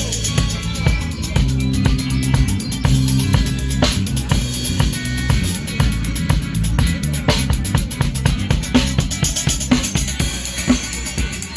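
A live band playing an instrumental groove at a sound check: a drum kit keeping a steady beat over a moving bass line, with guitar.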